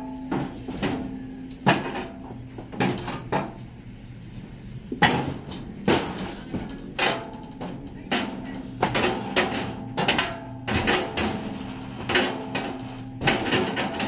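Irregular hammer blows and knocks on metal and wood, coming in quick clusters of several strikes with short pauses between, as old flooring and siding are worked loose from the cargo body's frame.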